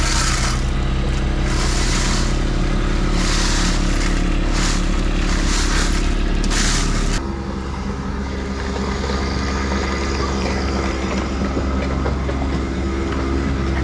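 Heavy equipment engine running steadily, with several bursts of noise over the top in the first seven seconds. The sound then changes abruptly to a quieter, steady engine drone.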